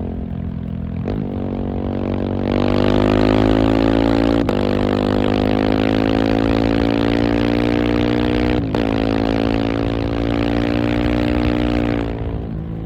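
KTM 690 SMC R single-cylinder engine under load: the throttle opens a couple of seconds in and the engine pulls with a slowly climbing pitch, broken twice by brief dips, which are upshifts, before the throttle closes near the end.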